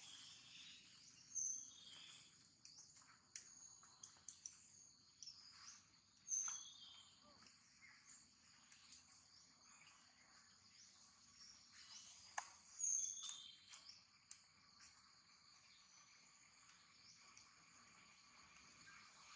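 Faint outdoor ambience: a steady high insect drone with a scattering of short, high-pitched bird chirps, three of them louder than the rest.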